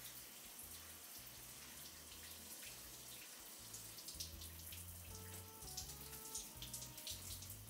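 Shower water spraying and splashing, faint and steady, with soft background music underneath.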